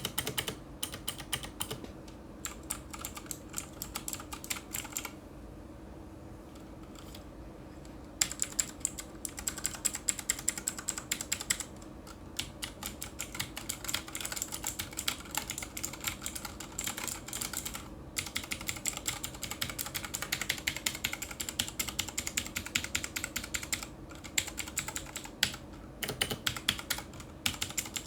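Typing on a Cosmic Byte Firefly GB16 tenkeyless mechanical keyboard with Outemu Blue clicky switches: fast runs of sharp key clicks, with a pause of about three seconds some five seconds in and a few shorter breaks. A faint steady hum lies underneath.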